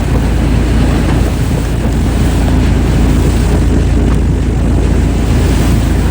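Heavy wood-processing machinery running with a loud, steady low rumble that does not let up.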